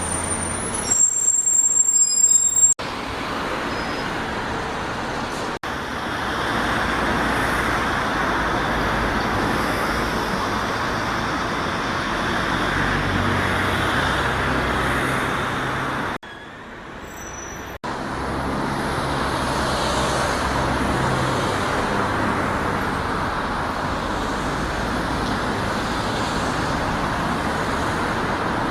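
Road traffic with buses running past, a steady engine and tyre noise. The sound is edited together from several short shots, and a brief louder piece near the start carries high, thin squealing tones.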